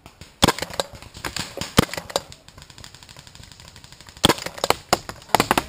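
Paintball markers firing: a short burst of pops about half a second in, a single sharp shot a little later, then a rapid string of shots in the last second and a half.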